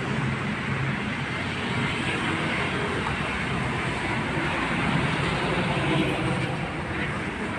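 Steady road traffic noise from cars passing along a busy city avenue, an even rumble without breaks.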